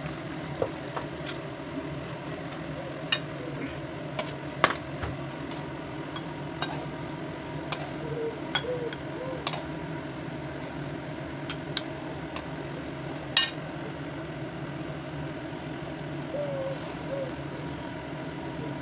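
Metal ladle clinking and scraping in a metal kadhai of thick curry, a scattered run of sharp taps with the loudest about two-thirds of the way in, over a steady low hum.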